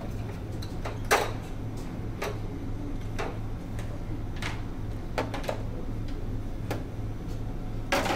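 Ceramic plates and dishes clinking and knocking as they are taken from a buffet counter and set on a tray. There are several separate clicks, the sharpest about a second in and another near the end, over a steady low hum.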